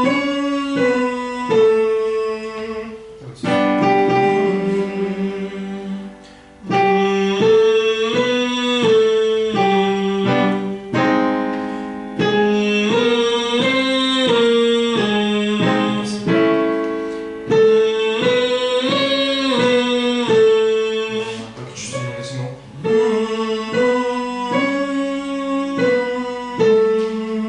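Vocal warm-up exercise: a singing voice runs through short stepwise note patterns over piano accompaniment, in phrases a few seconds long separated by brief breaks.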